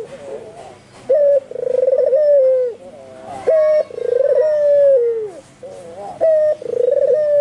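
White albino puter (Barbary dove) cooing repeatedly: three coos, each a short clipped note followed by a longer rolling note that falls away at its end.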